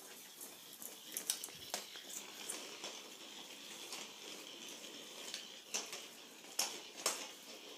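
A battery-powered weasel ball toy, an orange-and-blue ball with a furry tail, whirring faintly as it rolls around on a tile floor. Scattered light clicks and taps come through as it bumps and skitters along.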